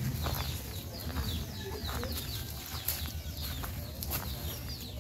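Chickens and small birds calling around the yard in many short, falling chirps, over a steady low rumble.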